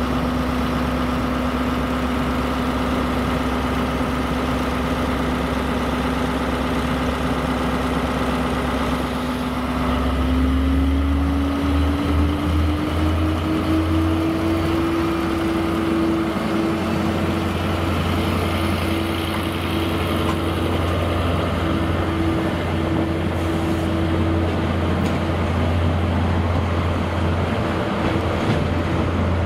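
Class 73/9 electro-diesel locomotives' MTU V8 diesel engines idling with a steady note. About ten seconds in, the engine note rises and holds at a higher pitch, a little louder, as they power up for shunting.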